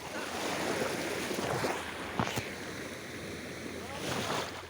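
Small waves washing in on a calm sea, the wash swelling and fading, with a sharp click a little past two seconds in.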